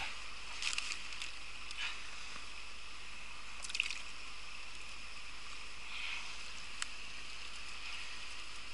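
A small river babbling over stones: a steady, even water sound, with a few faint short clicks and rustles here and there.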